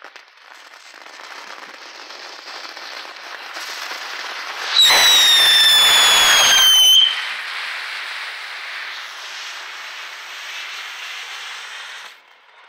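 Stryker tank novelty firework burning with a steady fizzing hiss as it spews sparks and smoke. The hiss builds, then a loud whistle sounds for about two seconds, sliding slightly down in pitch. The hissing carries on after the whistle and cuts off near the end.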